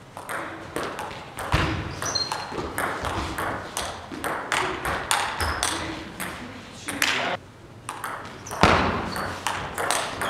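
Table tennis rally: the ball clicks sharply off the rubber bats and the tabletop, a couple of hits a second, with a short break about three-quarters of the way through before play resumes.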